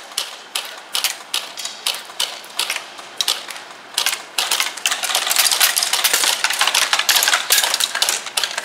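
Airsoft guns firing in an indoor arena: sharp shots with the clatter of BBs striking, scattered at first, then from about halfway through a dense rapid rattle of fire.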